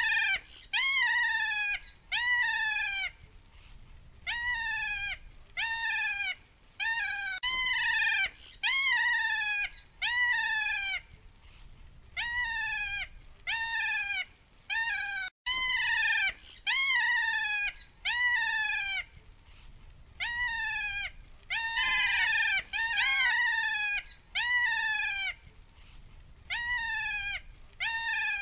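Kea parrot calling over and over: shrill calls that each rise briefly and then slide down in pitch, coming mostly in pairs or threes with short pauses between.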